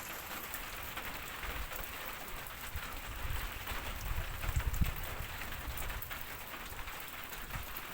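Heavy rain falling, a steady hiss with many scattered drop ticks, with a low rumble swelling in the middle.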